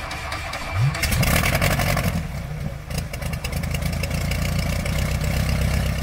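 The piston engine of a Wright B Flyer replica biplane running with a steady rapid beat. Its pitch rises and it grows louder about a second in, then it holds steady.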